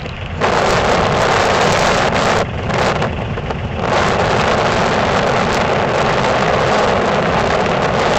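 Sawmill running loudly: a steady, rushing machine noise that starts about half a second in and thins briefly a little before the middle.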